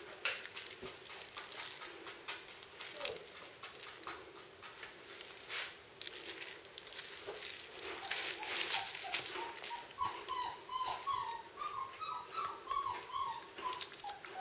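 Two Czechoslovakian wolfdog puppies playing with a plush toy on a tiled floor: many short clicks and scrapes of claws and the shaken toy, busiest in the middle. From about ten seconds in comes a quick run of short high squeaks.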